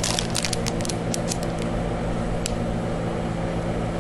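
Clear plastic bag of small washi tape rolls crinkling and clicking as it is handled: a quick run of clicks over the first second and a half, and one more about halfway through. A steady low hum runs underneath.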